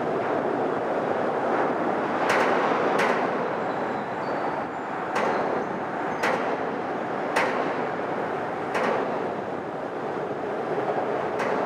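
Traffic crossing a steel girder bridge overhead: a steady rumble with seven sharp thumps at uneven intervals as vehicles pass over the deck.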